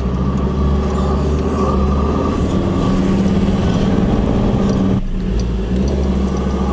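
Ford four-wheel drive's engine running steadily, heard from inside the cab while it drives slowly along a sand track. About five seconds in, the sound dips briefly and its engine note changes.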